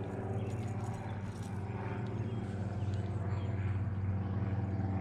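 A motor running steadily with an even low hum.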